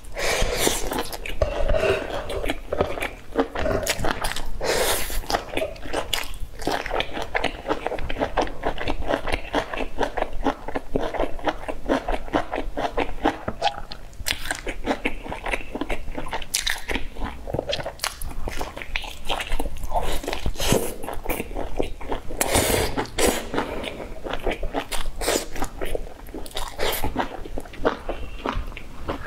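Close-up eating sounds: repeated biting, crunching and chewing of a crisp, filled flatbread, with many irregular crackles throughout.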